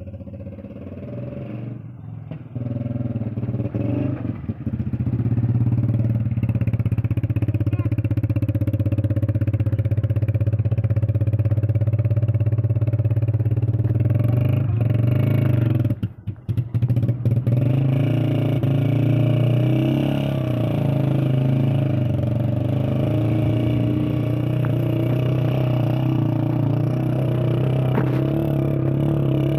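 Motorcycle engine running steadily under way, building up over the first few seconds, with a brief drop in level about sixteen seconds in.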